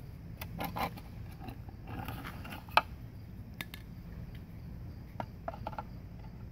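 Scattered clicks and light knocks of a spring-loaded alligator clamp being handled and clipped onto the edge of a plywood board, the sharpest click almost three seconds in.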